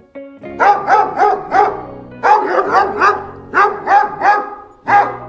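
A dog barking over light background music, in quick runs of short barks about four a second, with brief pauses between runs.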